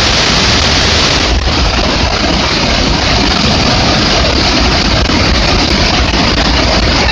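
Muddy floodwater pouring off a dam spillway and churning in the river below: a loud, steady rush of water with a deep rumble underneath.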